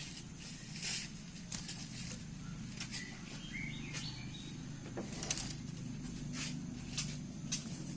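Caged orange-headed thrush moving about: scattered clicks and brief flutters, with a few faint short chirps around the middle, over a steady low hum.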